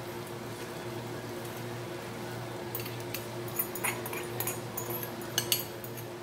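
Broccoli florets dropped from a glass bowl into a frying pan of beef, with a spoon knocking against the bowl: a run of light knocks and clatter starting about three seconds in, loudest near the end, over a steady low hum.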